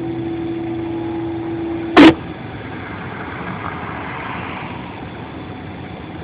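Amateur two-way radio receiving an open channel with a steady hum, cut off by a short loud squelch burst about two seconds in; after that only a steady low background noise.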